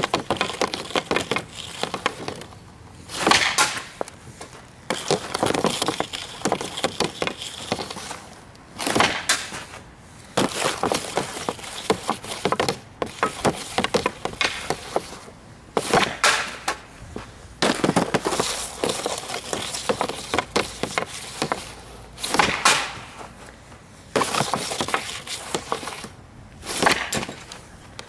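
A Bauer Total One NXG hockey stick's blade scraping and clicking on hard outdoor ice as pucks are stickhandled, with a loud sharp crack of stick and puck on the ice every few seconds as shots are taken, about seven times.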